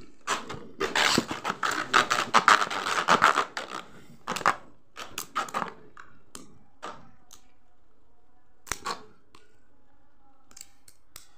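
Two Beyblade Burst tops, Dread Phoenix and Prime Apocalypse, clashing in a homemade stadium. A dense, fast clatter of hits lasts about four seconds, then thins to scattered knocks with a faint hum of the spinning tops, and a last sharp knock near the end.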